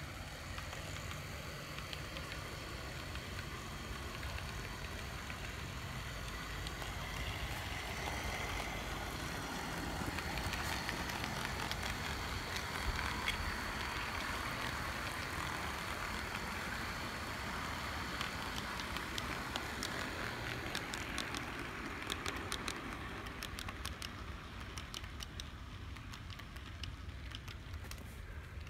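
Brass HO-scale Illinois Terminal Class C electric locomotive model, remotored with a Canon EN22 motor driving its worm shafts through spring belts, running along the track with a steady, quiet whir that grows louder around the middle as it passes close. Light clicks of wheels over rail joints come more often in the second half as the cars roll by.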